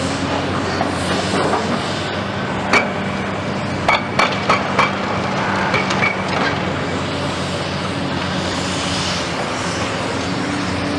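Large tracked hydraulic excavators, a Cat 345 among them, running steadily on diesel while working concrete rubble. A string of sharp metallic clanks comes between about three and six seconds in as the buckets and attachments strike concrete and steel.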